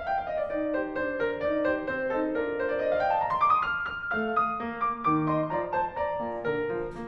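Classical piano background music, a quick stream of notes with a rising run near the middle.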